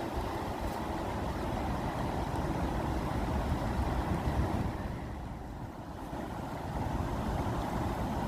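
Rushing water, a continuous low, full noise that eases for about a second near the middle and then swells back.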